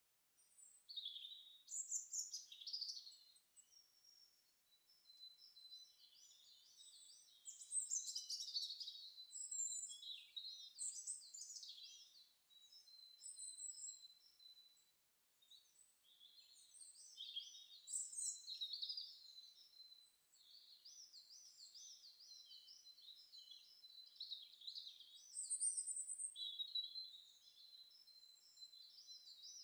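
Several songbirds chirping and singing at once, with a fast warbling trill that comes back again and again between shorter chirps. All of it is high, with nothing low underneath, as from a birdsong sound-effects track.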